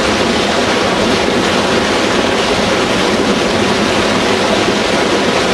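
Fast-flowing shallow creek rushing over rocks and small rapids: a loud, steady rush of water.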